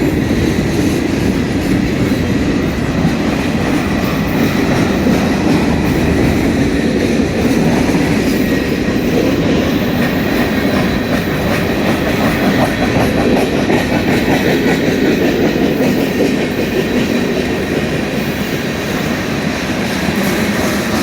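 Freight cars of a Union Pacific mixed freight train rolling past, including center beam flatcars loaded with lumber: a loud, steady noise of steel wheels running on the rails.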